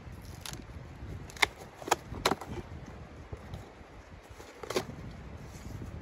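Small sticks of kindling knocking against each other and the steel firebox of a camp wood stove as they are loaded in: four sharp clicks, three close together between about one and a half and two and a half seconds in and one more near five seconds, over low wind rumble on the microphone.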